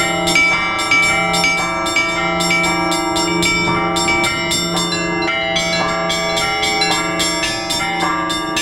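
Russian Orthodox church bells rung together in a peal, with rapid strokes on the small bells several times a second over the lasting hum of deeper bells.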